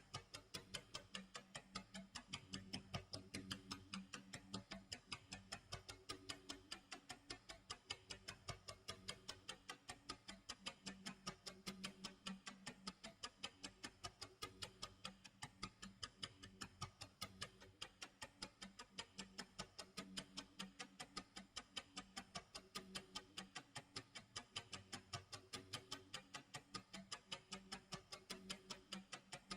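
Clock tick-tock sound effect, steady ticks about two a second, over soft low sustained music tones.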